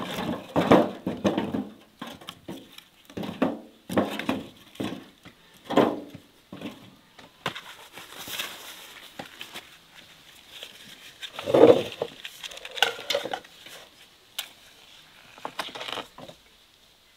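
Irregular kitchen handling sounds: short clinks and knocks of dishes and a knife with rustling between them, while apples are worked by hand. One louder knock comes about two-thirds of the way through.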